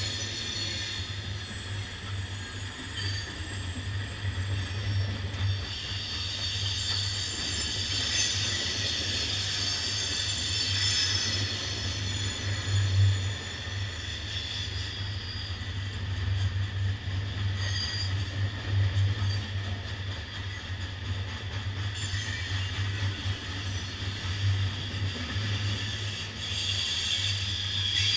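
Freight train of hopper cars rolling past: a steady low rumble with high-pitched wheel squeals that come and go.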